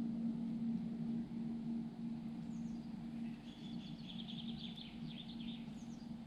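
A songbird singing a quick trill of rapid repeated high notes, starting about two and a half seconds in and lasting about three seconds, over a steady low hum.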